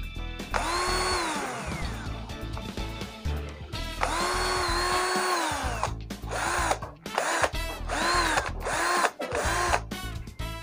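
Mitsushi 12 V cordless drill motor spinning while powered from a 12 V e-bike battery, whining as the trigger is squeezed. There is one run of about two seconds that winds down in pitch, a longer run near the middle, then several short blips in quick succession, each rising and falling. Background music plays underneath.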